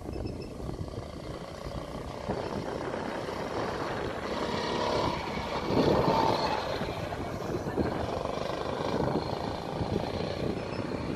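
Go-kart engine running as a kart laps the track, growing louder to pass close by about six seconds in, then moving away.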